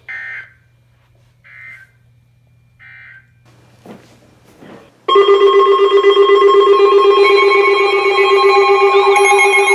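Three short bursts of NOAA weather radio data tones, the EAS end-of-message signal, about a second and a half apart. About five seconds in, a loud electronic weather radio alert alarm starts and holds: several steady tones at once, with a warbling tone joining near the end.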